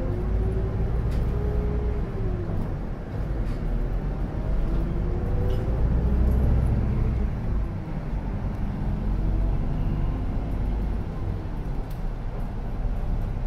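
Isuzu Erga city bus running, heard from inside the passenger cabin: a steady low engine rumble with a whine that rises in pitch and drops off about two and a half seconds in, then rises and drops again about seven seconds in, as the bus pulls away and gathers speed.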